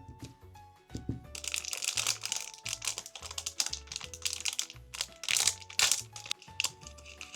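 Packaging being crinkled and crackled by hand, starting about a second in, over background music with a steady bass line.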